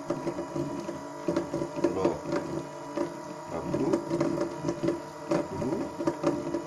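Small electric motor driving a spur-gear train and a belt-driven pulley, running with a continuous mechanical whir and gear whine whose pitch shifts up and down as the speed changes.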